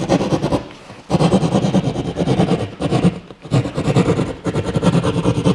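Hand keyhole saw cutting through drywall, quick back-and-forth strokes in runs, with a short pause about a second in.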